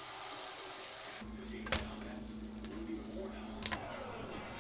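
Food sizzling in a frying pan, an even hiss, for about a second. It then gives way abruptly to a steady low hum with two sharp clicks.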